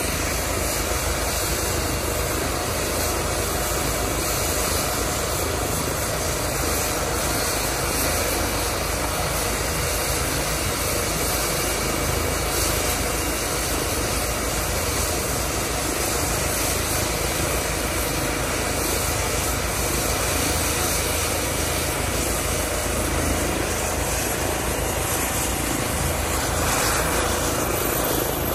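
Eurocopter EC135 twin-turbine helicopter running on the ground with its rotor turning: a steady turbine whine and rotor noise, growing louder over the last couple of seconds as it spools up for take-off.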